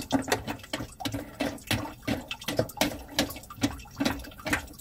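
White plastic mounting nut being threaded by hand onto a soap dispenser's shank: a run of irregular light clicks and scrapes, about three a second.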